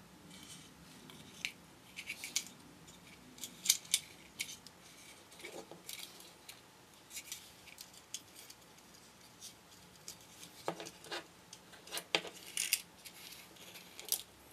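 Small sharp clicks, taps and light rustles of fingers handling the card-and-plastic parts of a miniature dollhouse kit while threading a thin LED wire through its walls. They come irregularly, with the sharpest pair about four seconds in.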